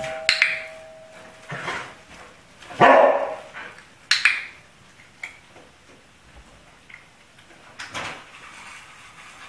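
A two-tone doorbell chime dies away in the first second, and a dog barks at it several times, in short single barks spaced a second or more apart, the loudest about three seconds in.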